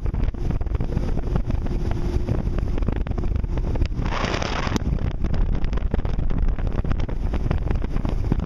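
Wind buffeting the microphone with a steady low rumble from a boat on open water. A brief hiss comes about four seconds in.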